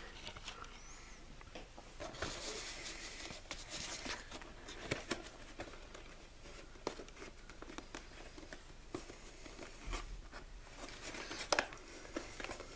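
Cardboard box being handled and opened: faint rustling and scraping, broken by scattered light knocks and clicks.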